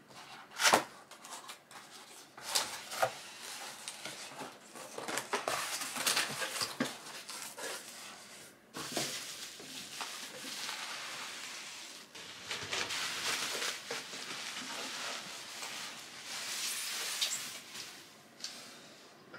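Cardboard box being opened by hand, its flaps knocking and scraping, then bubble-wrap packing rustling and crinkling as it is pulled back, with scattered knocks of the contents being lifted out.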